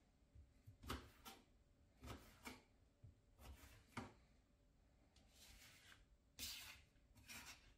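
Knife slicing through a raw potato and meeting the cutting board, a series of short cuts about once a second, the sharpest near the end.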